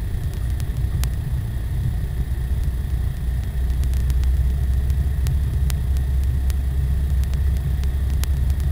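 Steady low rumble of a car's engine and tyres heard from inside the cabin while driving, growing a little louder about three and a half seconds in, with faint scattered clicks.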